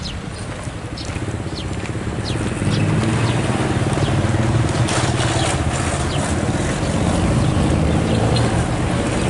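Street traffic: a motor vehicle engine running nearby, a low steady hum that gets louder about three seconds in and holds. A few short high chirps sound in the first few seconds.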